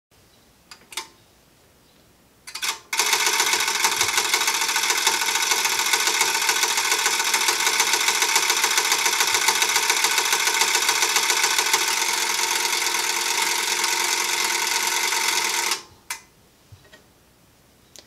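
Elecraft KAT500 automatic antenna tuner's switching relays clicking: a few single clicks, then a rapid, continuous chatter for about thirteen seconds that stops abruptly, followed by a couple more clicks. The tuner is searching L and C combinations for a match on an open load, which it cannot match, and it gives up with a fault.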